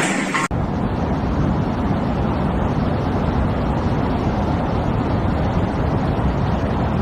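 Violent storm wind, a loud, steady low rushing that buffets the microphone. About half a second in it cuts in abruptly, replacing a brighter hiss of wind-driven rain.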